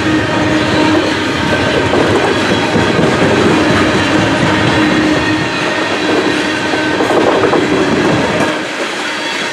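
Loaded CSX coal hopper cars rolling past at a grade crossing: a steady rumble of wheels on rail with clickety-clack over the rail joints and a thin ringing squeal above it, the low rumble easing a little near the end.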